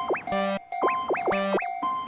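Cartoon railroad crossing bell dinging about twice a second, overlaid with springy boing-like pitch swoops and three short buzzy, horn-like blasts from the animation's sound effects.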